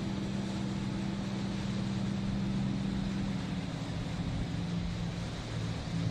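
A steady, low engine drone with a rushing hiss over it; the drone's pitch shifts slightly about three and a half seconds in.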